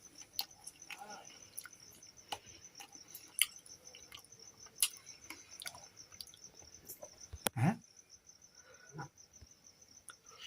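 A cricket chirping in a steady, fast-pulsed high trill, with scattered faint clicks and one louder short knock about three-quarters of the way through.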